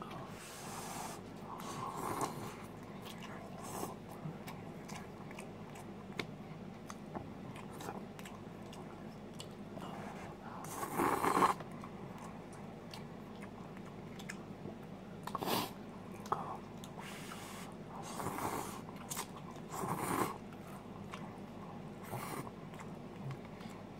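A person slurping instant cup noodles off a fork and chewing, in several short slurps between quieter chewing, the loudest about halfway through.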